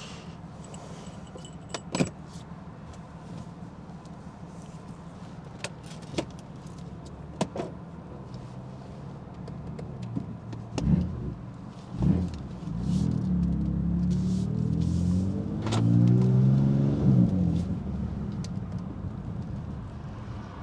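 Stage 2 tuned BMW F80 M3's twin-turbo straight-six running steadily at low revs, with a few sharp exhaust cracks. About halfway in the engine blips twice, then pulls hard with the revs climbing, loudest a little past three-quarters of the way through, before it eases off near the end.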